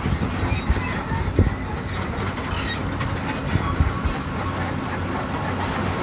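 Hyundai excavator's diesel engine running steadily with a low hum, with a few short knocks about a second in and again near the middle.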